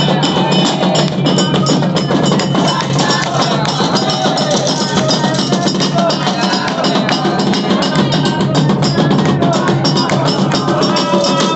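Percussion music led by drums, playing a dense, fast, steady rhythm without a break.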